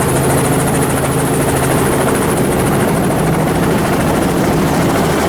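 Helicopter running with a steady drone and a constant hum.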